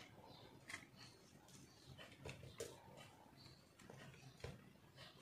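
A knife blade scraping and carving a block of dry re-molded soap: quiet, irregular crunchy scrapes and small ticks.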